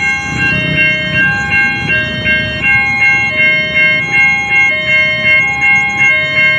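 Electronic level-crossing warning alarm sounding an even two-tone pattern, a high and a low tone alternating about every 0.7 seconds, over a low rumble.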